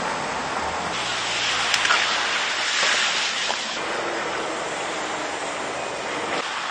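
A steady rushing noise, louder for a couple of seconds about a second in, with a single sharp click near the two-second mark.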